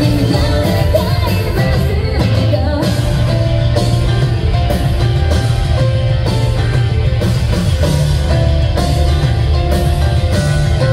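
A J-rock band playing live with electric guitar, bass, drums and keyboard, loud and steady, recorded from among the audience.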